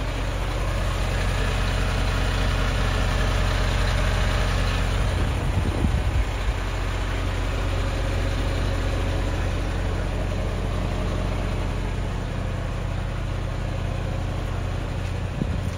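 Mercedes-Benz Atego 1530 truck's six-cylinder diesel engine idling steadily, with a brief clatter about five to six seconds in.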